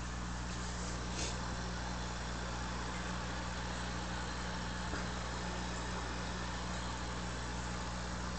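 Aquarium air pump humming steadily while its air stone sends a stream of bubbles through the water, giving an even hiss; a couple of faint ticks.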